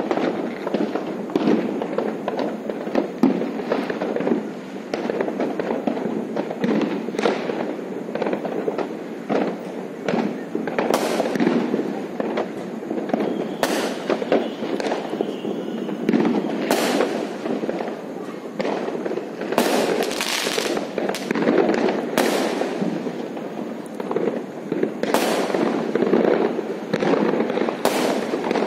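Many fireworks and firecrackers going off at once: a dense, continuous rumble of pops and bangs, with louder sharp cracks standing out every few seconds.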